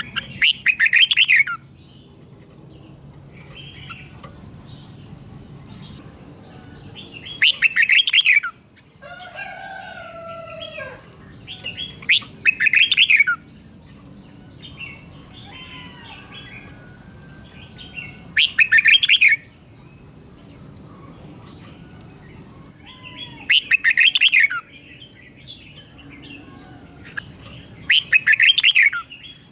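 Red-whiskered bulbul singing: six loud, quick-chattering song phrases of about a second or so each, roughly every five seconds. Softer whistled and gliding bird notes fill the gaps between them.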